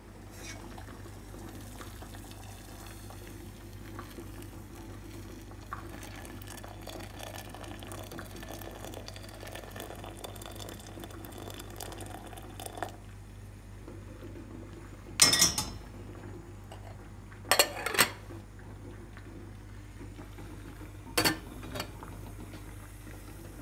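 Water running and splashing into a stainless-steel Turkish double teapot (çaydanlık) for about thirteen seconds, then three loud metal clanks as the steel pot is handled and set on the gas stove's grate.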